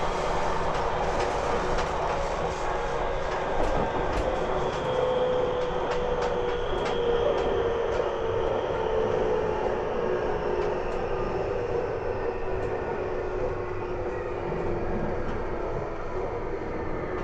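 JR Kyushu 811 series electric train with outer-fan traction motors running, heard from inside the passenger cabin: a steady motor and fan whine over wheel and rail noise. The whine's tones slide gradually lower through the second half as the sound eases slightly.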